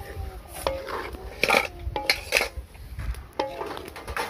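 A wooden spatula stirring a thick mixture in a large iron wok, scraping and knocking irregularly against the metal. Some knocks leave a short metallic ring from the wok.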